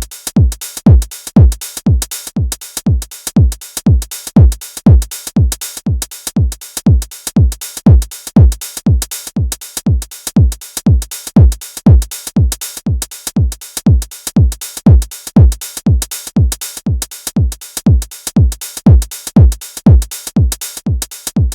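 Electronic dance music with a steady drum-machine kick, about two beats a second.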